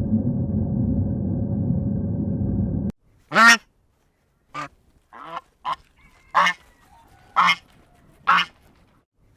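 A steady low noise that cuts off sharply about three seconds in, followed by a series of about seven short, loud honking calls from waterfowl, spaced roughly a second apart.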